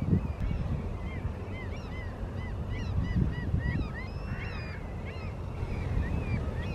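Birds calling: a rapid series of short, arched piping notes from several birds, densest about halfway through, over a low rumble of wind on the microphone.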